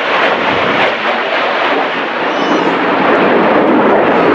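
Red Arrows' BAE Hawk T1 jets flying past in formation, a loud, steady jet roar that shifts deeper in the last second or so.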